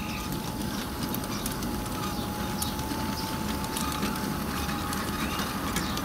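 Homemade wooden-frame log wagons of an LGB garden railway, on LGB axles in 3D-printed axle bearings, rolling past on the track with a continuous clicking rattle of wheels on rails. A thin steady whine runs underneath.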